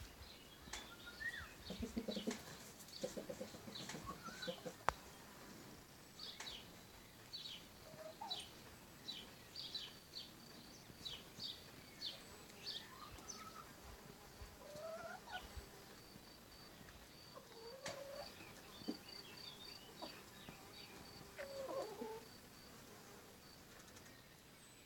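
A flock of chickens clucking and giving short, rising and falling calls, fairly faint. Many short high-pitched chirps run through it, with an evenly spaced run of high pips in the middle.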